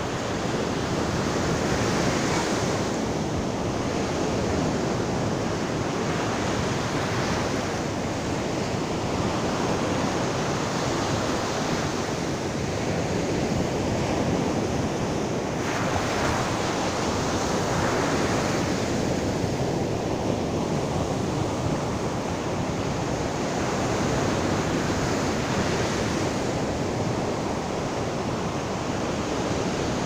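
Sea surf breaking and washing up a sandy beach: a steady rush of water that swells every few seconds as each wave breaks.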